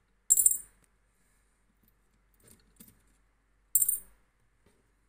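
Small metal gram weights dropped into the metal pan of a balance scale, two sharp clinks that ring briefly, the first just after the start and the second near the end, with a few faint taps between. The weights are being set for a 1.80 g powder charge.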